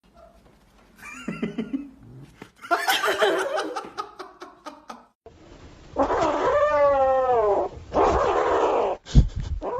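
Kittens meowing and yowling in a run of short clips. One long wavering yowl comes about six seconds in, and a sudden thump near the end.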